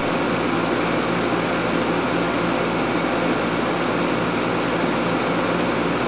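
Home-built heat pump water heater running, its air-conditioner compressor and radiator fan making a steady hum over an even rush of air while the unit heats a tank of water.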